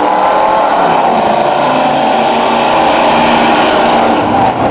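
Engines of several demo trucks running and revving together as they race around the track, loud and continuous, their pitches overlapping and wavering up and down.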